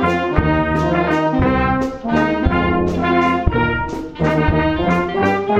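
Wind band of brass and woodwinds playing a tune together, with a low brass bass line and drum hits about once a second.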